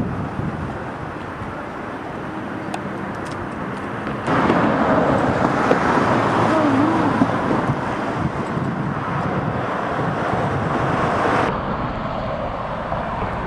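Steady road traffic noise with wind on the microphone. It gets suddenly louder about four seconds in and drops back near the end.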